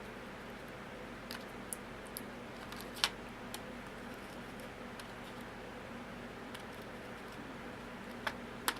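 Small sharp clicks and ticks of padlock pins, springs and tools being handled during disassembly. A few are scattered through, with the loudest about three seconds in and two more close together near the end, over a steady low hum.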